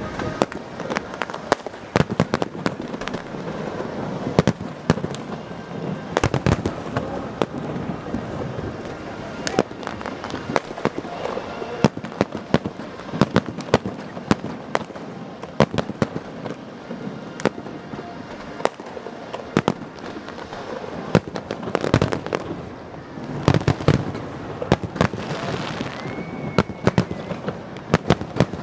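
New Year fireworks display: a dense, continuous crackle of shell bursts and pops, several a second, with heavier booms every few seconds. A brief whistle sounds near the end.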